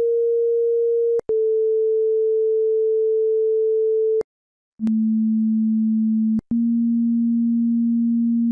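Loud, steady electronic pure tone with no overtones. A higher tone cuts out for an instant about a second in and stops around four seconds in. After half a second of silence, a tone about an octave lower starts, with its own click and brief dropout about six and a half seconds in.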